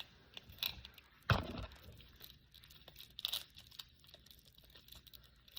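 Small packaging being torn open and crinkled by hand: scattered crackles, with a louder rip a little over a second in and another about three seconds in.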